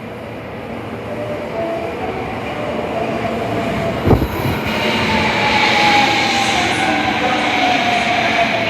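Osaka Metro Tanimachi Line 22 series subway train running, its sound growing louder, with a sharp thump about four seconds in. After the thump come a rising hiss and one slowly falling whine.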